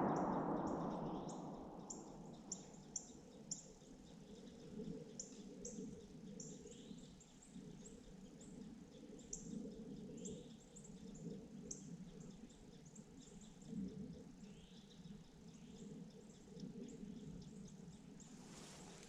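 The echo of a shotgun report dying away over the first two seconds, then quiet flooded-timber ambience with small birds chirping faintly in short, high notes, and a few soft clicks.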